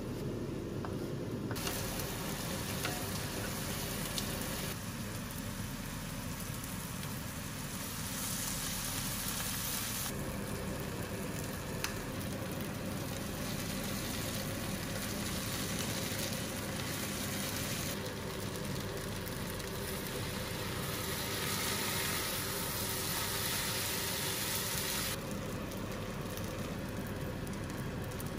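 Kimchi and rice sizzling as they fry in a cast-iron skillet, with a steady sizzle that changes in strength at several cuts and a couple of brief clicks from the utensils.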